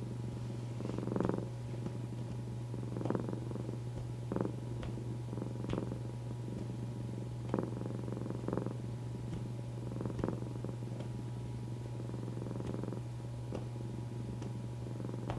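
Domestic cat purring continuously, with soft swells every second or two, over a steady white-noise hiss.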